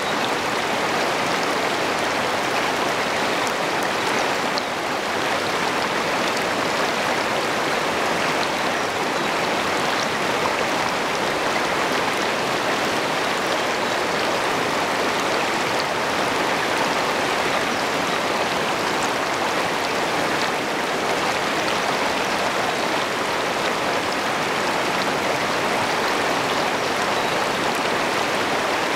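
Shallow river rapids rushing steadily over rocks, close to the microphone.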